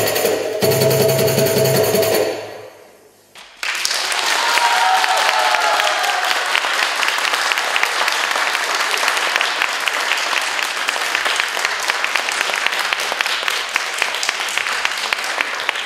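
Percussive dance music ends about two seconds in, and after a short pause an audience applauds steadily, with a few voices calling out as the clapping begins.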